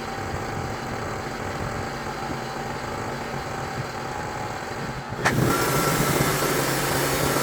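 Sawmill engine running steadily. About five seconds in there is a sharp knock, and the sound gets louder with a steady whine added.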